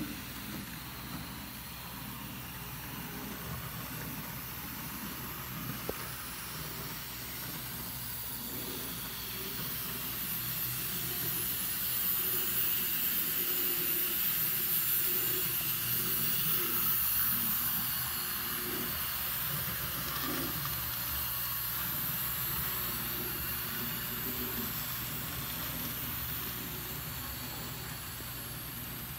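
N-scale model steam train running along the track, a steady high hiss that grows louder as the locomotive passes close, about halfway through, then eases off.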